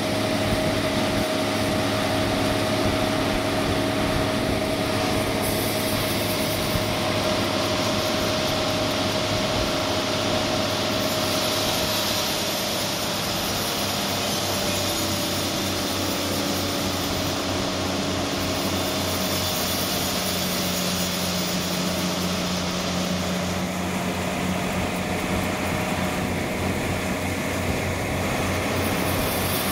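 Large industrial band sawmill running, a steady machine hum with a constant whine. A brighter hiss builds from about the middle and fades a few seconds before the end.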